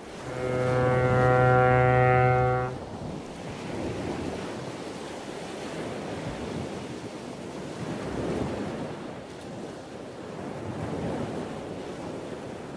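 A ship's horn sounds one deep, steady blast of about two and a half seconds, then ocean waves wash in, swelling and easing every few seconds.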